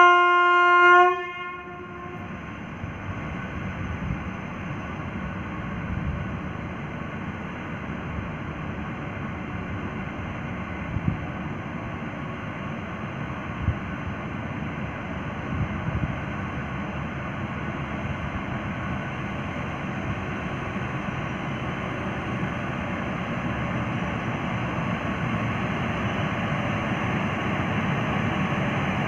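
An electric locomotive's horn gives one blast of about a second and a half. Then comes the rumble of a train pulled by two electric locomotives (a WAP-5 and a WAP-7) rolling closer, which grows slowly louder, with a few knocks along the way.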